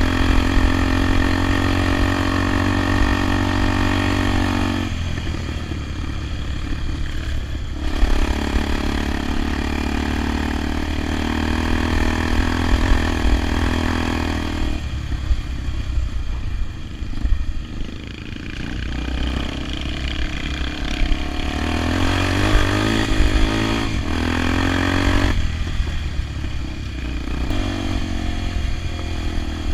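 Honda XR 250 Tornado's single-cylinder four-stroke engine running under way, its note holding steady and then stepping abruptly to a new pitch several times as the throttle and gears change.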